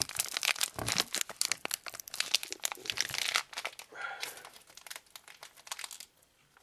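Plastic wrapper of a 2013 Prestige Football trading-card pack being torn open and crinkled by hand: a dense, rapid crackling that thins out and dies down near the end.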